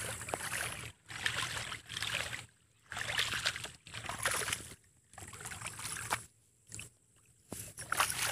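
Rice seedlings being uprooted from a flooded nursery bed and swished in muddy water to wash the roots: repeated splashing and sloshing strokes about once a second, with short pauses between them.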